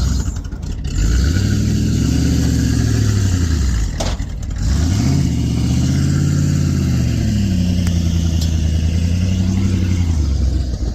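Old Ford F-150 pickup's engine revving hard under heavy load as it drags a Case backhoe, the pitch climbing and falling back about three times.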